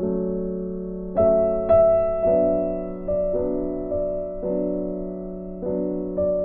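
Background music: a slow piano melody, notes struck roughly once a second and left to fade, the loudest two a little over a second in.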